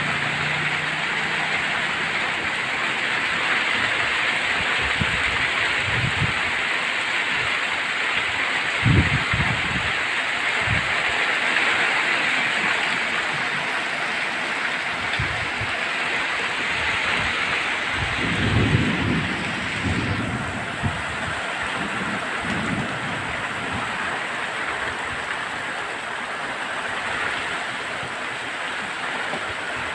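Heavy rain falling steadily, with a few short low rumbles, the strongest about 9 seconds in and around 18 to 20 seconds in.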